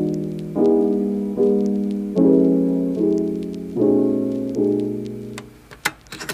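Lo-fi background music: soft piano chords struck about every 0.8 seconds, each fading before the next. Near the end the music drops away and a few sharp clicks come as a phone is pressed into a clear soft case.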